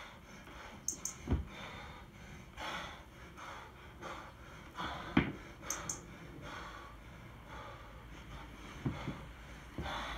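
Hard, rhythmic breathing with forceful gasps and snorts from a lifter deep into a long set of 24 kg kettlebell jerks. Sharp thuds come about 1.4 s and 5.2 s in and twice near the end as the kettlebell is driven up and dropped back into the rack.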